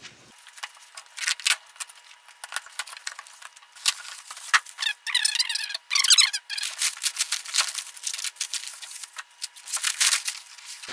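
Silver padded packaging wrap being handled and torn open: a dense run of crinkles, crackles and sharp rustles, with squeaky rubbing sounds about halfway through.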